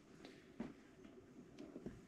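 Near silence: faint room tone with a few light clicks.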